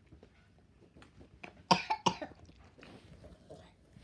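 A child coughing twice in quick succession about two seconds in, a reaction to a lollipop he calls so spicy and sour.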